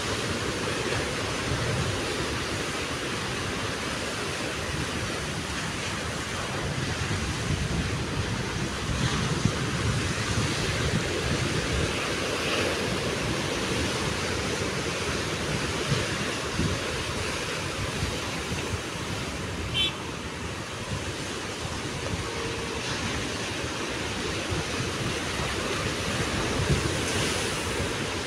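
Rough sea surf breaking steadily against the rocky shore, with wind gusting on the microphone.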